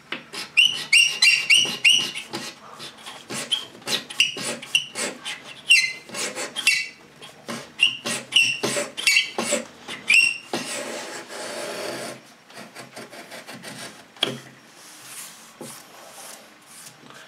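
Lie-Nielsen No. 66 beading tool scraping flutes into a small wooden strip, its steel blade drawn back and forth in quick strokes with a scratchy, squeaky sound. The strokes are loud for about the first ten seconds, then grow weaker toward the end.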